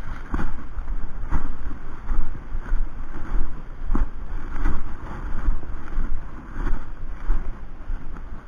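Wind buffeting an action-camera microphone in uneven gusts, with scattered short knocks and thumps.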